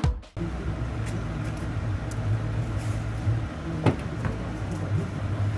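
A steady low engine hum with a single sharp click about four seconds in.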